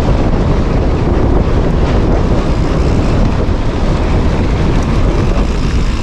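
Brutal wind buffeting the microphone: a loud, steady rumbling noise.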